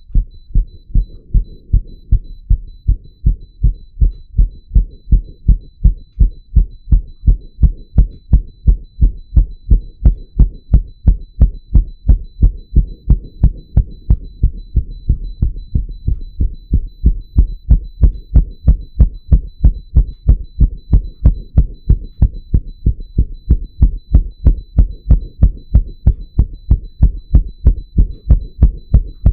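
A man's heartbeat picked up at the chest, beating fast in a steady, even rhythm of low thuds.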